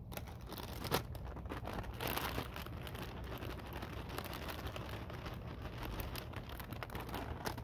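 Plastic bag of chopped kale crinkling and rustling as it is handled and the leaves are shaken out into the pot.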